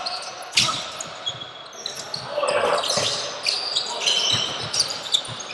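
Basketball game play on an indoor court: a ball bouncing and short, high sneaker squeaks scattered irregularly throughout.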